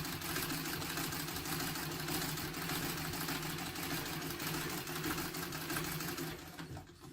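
Freshly oiled antique Singer treadle sewing machine running steadily with a fast, even clatter, then slowing and stopping near the end.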